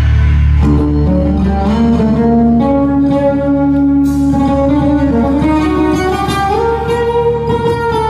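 Live band music: a slow melody of long held notes over a steady low bass drone. Quick plucked or drummed strokes join in about halfway through.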